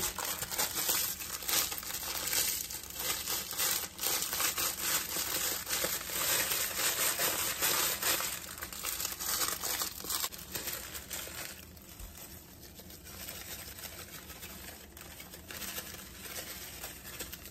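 Ritz crackers being crushed and crumbled by hand over a casserole dish: a dense crackling of breaking crackers and falling crumbs, softer after about eleven seconds.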